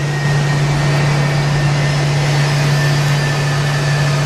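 Jet engines idling: a steady low hum under an even hiss, with a faint high whine. The airliner is holding on the runway, not yet spooled up for takeoff.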